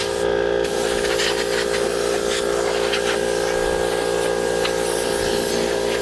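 Compressed air hissing from a blow nozzle as it is sprayed into a gas furnace's squirrel-cage blower wheel, blowing the dirt off its fins, with a few short surges.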